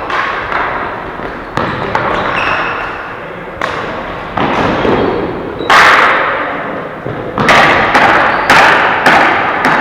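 Ball hockey play in an echoing rink: a string of sharp knocks and thuds from sticks hitting the ball and the ball striking the boards, each ringing on briefly. The loudest comes about six seconds in, with several more close together near the end.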